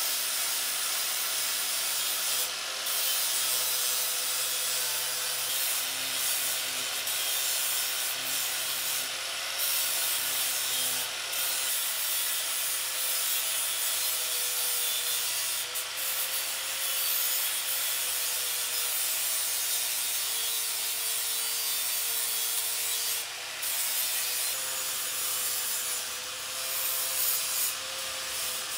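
Corded electric angle grinder with an abrasive disc grinding spot-weld bumps off a generator's steel frame: a steady motor whine over a dense grinding hiss. The whine's pitch sags briefly about two-thirds of the way through.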